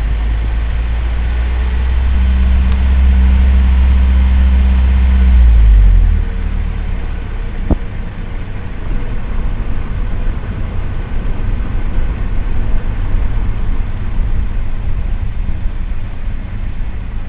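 Car engine running with a low drone that drops in level about six seconds in, then a steadier, quieter rumble; a single short tick near eight seconds.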